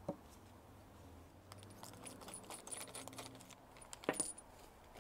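Small metal parts and tools handled on a workbench, clinking and jangling. A sharp knock comes right at the start, light rapid clinks follow, and the loudest event is a brief metallic clatter about four seconds in.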